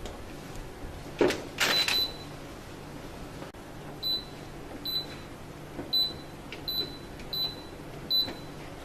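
Whirlpool washing machine's control-panel buzzer giving short, high beeps, about seven at uneven intervals, after a brief clatter about a second in.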